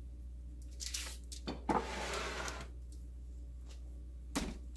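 Handling noise on a kitchen counter: a few light knocks about a second in, a scraping rustle lasting about a second, and one more knock near the end, over a steady low hum.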